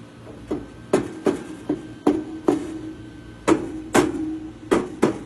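About a dozen sharp knocks on the sheet-metal cabinet of an air-conditioning unit, struck at an uneven pace, each leaving a short ringing tone.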